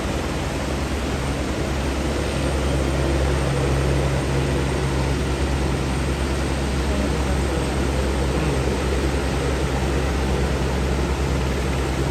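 Helicopter flying over, a steady low drone of rotor and engine, over the even rushing noise of a flooded river.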